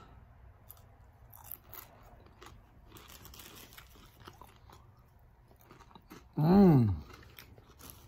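A man chewing toasted crickets with soft, irregular crunches. About six and a half seconds in he gives one short, loud vocal sound, rising then falling in pitch.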